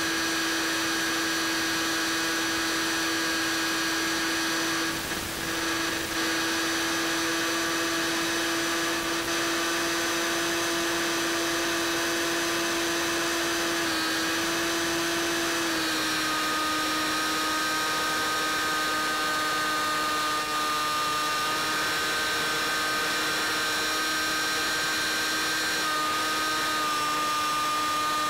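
Electric motor and pusher propeller of a Bix3 FPV plane in flight, picked up by the onboard camera's microphone: a steady whine with a hiss behind it. The pitch steps down slightly about sixteen seconds in as the throttle is eased back.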